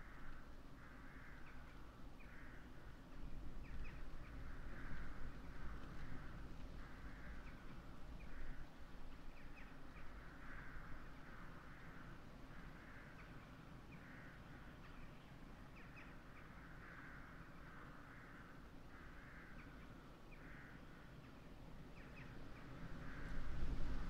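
A flock of crows cawing, many calls overlapping one another, with wind rumbling on the microphone that grows louder near the end.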